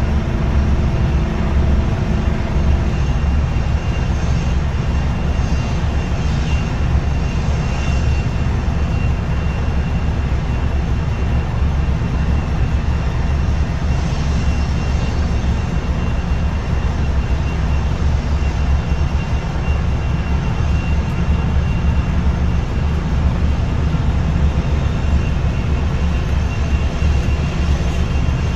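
Aircraft engines running steadily as the plane taxis: a heavy low rumble with a faint steady high whine over it.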